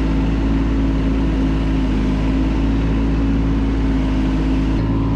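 Kymron ZX22 mini excavator's engine running steadily, with an abrupt change in its low hum just before the end.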